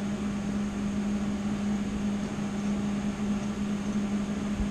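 Steady mechanical hum: a small machine running with an even low drone over a soft hiss, with one dull thump near the end.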